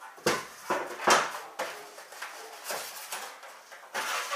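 Cardboard box and polystyrene foam packaging being handled, rustling and scraping in several short bursts, the loudest about a second in and another near the end.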